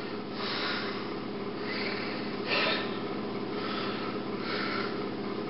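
A man breathing audibly close to the microphone, in soft noisy swells about a second apart, mixed with faint rustling, over a steady low electrical hum.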